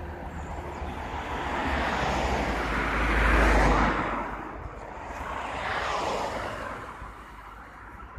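Road traffic passing: a car drives by with a rising and falling rush of tyre and engine noise, loudest about three and a half seconds in, then a second, quieter vehicle passes around six seconds in.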